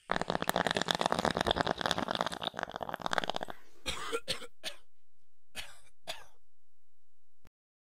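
An intro-logo sound effect: a harsh, dense rasping crackle for about three and a half seconds, then a few short, separate crackling bursts, cutting off suddenly near the end.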